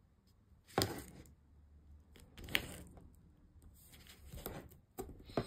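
A roll of tape being handled and strips of it pressed down onto a cardstock spine by hand: scattered soft taps and rubs, with a sharper tick about a second in and another at about two and a half seconds.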